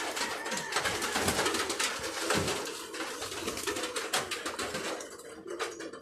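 Dry straw nesting material and wire cage rustling and crackling as a hand gropes in the nest for emerald dove chicks, with low soft cooing of emerald doves beneath. The rustling thins out near the end.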